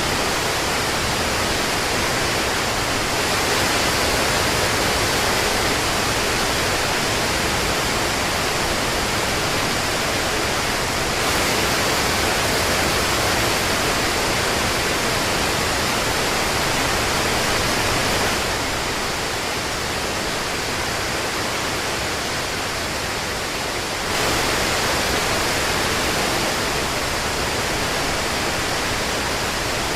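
Steady rain falling, a dense even hiss that dips slightly in level for about five seconds past the middle.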